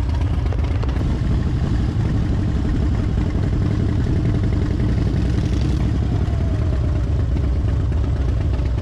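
Harley-Davidson Fat Bob V-twin motorcycle running on the road, a steady low engine rumble mixed with road and wind noise.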